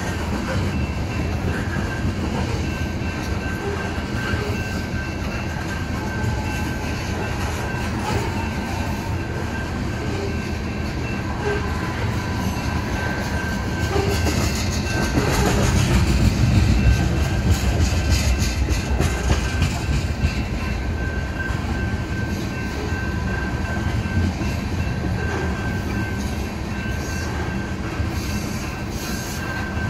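Loaded ethanol tank cars of a freight train rolling past at a grade crossing: steady noise of steel wheels on rail with clattering, and a thin steady high tone over it. It grows louder for several seconds around the middle.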